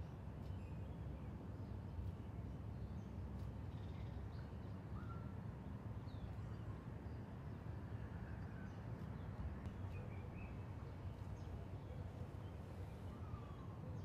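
Outdoor ambience: a steady low rumble with short bird chirps and whistles scattered here and there.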